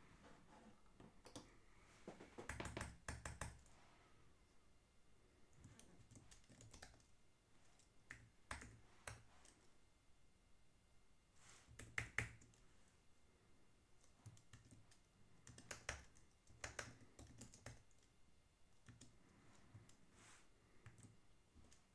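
Faint key taps on a computer keyboard in short, scattered bursts, the loudest a little past halfway through, with near silence in between.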